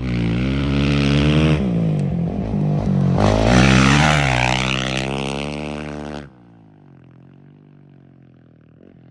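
Off-road race motorcycle passing at speed, its engine revving up and down through the gears, loudest about four seconds in and then fading away. About six seconds in the sound drops off abruptly, leaving a much fainter engine in the distance.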